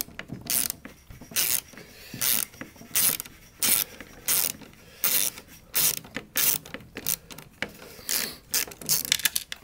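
3/8-inch drive ratchet wrench clicking in short bursts on its return strokes, backing off a thread-locked nut. The strokes come more quickly in the second half.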